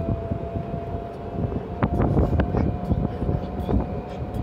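A golf cart riding along a paved street: a low rumble of wind and road noise with a steady thin whine, and a few sharp knocks about two seconds in.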